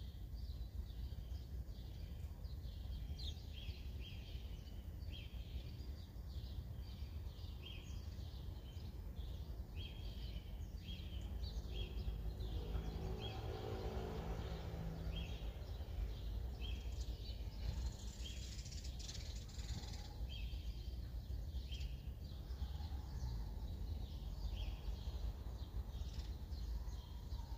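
A small bird chirping over and over, a short high call roughly every half second, over a steady low outdoor rumble that swells briefly in the middle.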